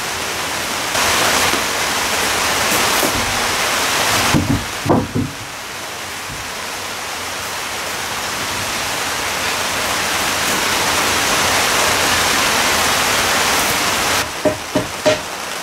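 Angle grinder sanding dried glue squeeze-out off a laminated wooden keel: a loud, steady hiss, broken by a few knocks about five seconds in and a few clicks near the end.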